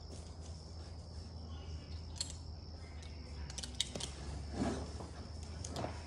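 Quiet outdoor ambience: a steady low hum and a steady high thin whine, with a few light clicks and rustles about halfway through.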